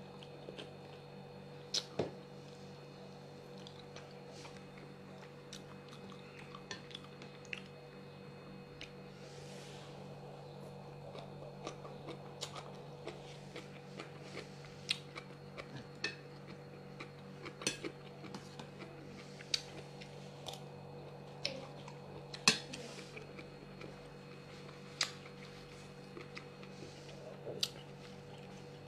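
Light, irregular clinks and taps of utensils against dishes, a few of them sharper knocks, over a steady low hum.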